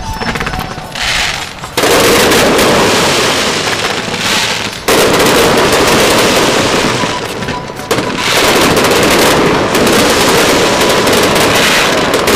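Aerial fireworks going off in quick succession: a dense, loud crackling and popping. It surges abruptly about two, five and eight seconds in, as new volleys fire.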